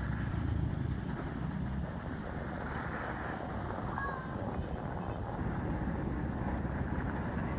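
Steady low rumbling background noise, with a faint short squeak about four seconds in.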